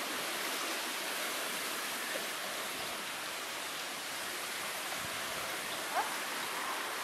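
Steady rushing noise of gusty wind and small choppy waves on open water. A brief rising chirp about six seconds in.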